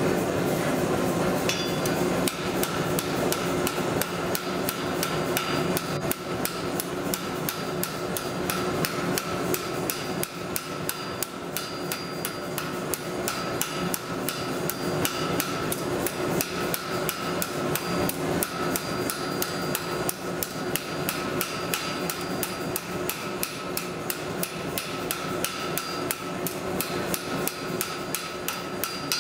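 Blacksmith's hand hammer striking red-hot steel bar on an anvil in a fast, steady rhythm of blows, with the anvil ringing under them. The hammering starts about a second and a half in. This is the stage of rounding off half-inch square bar by hand.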